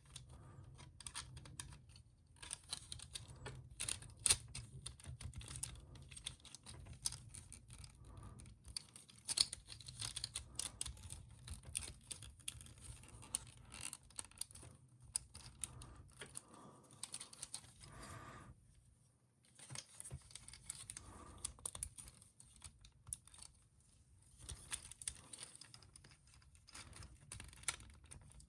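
Small plastic toy parts being handled and fitted together, a jetpack accessory being pressed onto an action figure: faint, irregular light clicks and taps, with a brief lull past the middle.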